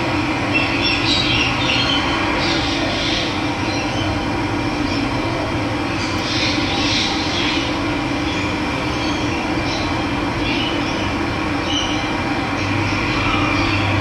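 Running water: a steady, continuous rush of flowing water, with birds calling now and then.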